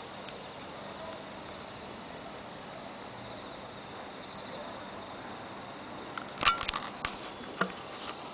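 Insects trilling steadily in the background. About six seconds in, a cluster of sharp clicks and knocks from the camera being handled.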